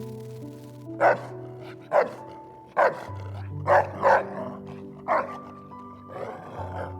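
A dog barking repeatedly, single sharp barks about once a second with a quick double bark near the middle, over background music.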